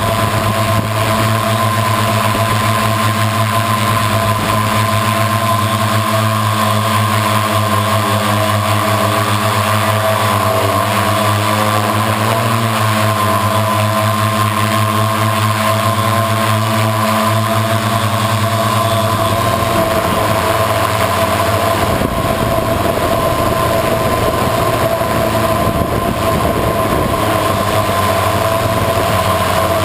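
Electric motors and propellers of an FPV multirotor in flight, a loud steady buzzing whine picked up by its onboard camera. About twenty seconds in, the lower tones change and turn rougher.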